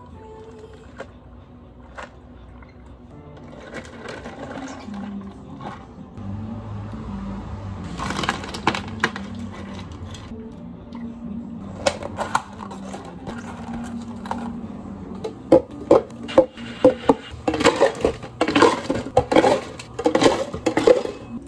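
Milk poured from a carton over ice in a plastic cup. After that, a metal scoop digs into ice, and cubes clatter into large plastic takeaway cups, with a quick run of sharp clinks in the last several seconds.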